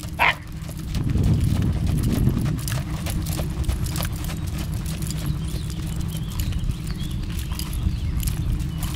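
Hooves of a trotting horse striking arena dirt footing in a steady, even rhythm.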